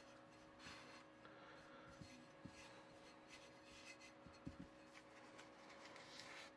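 Faint rubbing of fingers working crumbly cookie dough and loose powder against a tray, with a few soft knocks.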